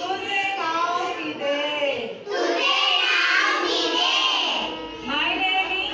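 A group of schoolchildren reciting a sentence aloud together in a sing-song chorus, loudest in the middle, with a single speaking voice before and after it.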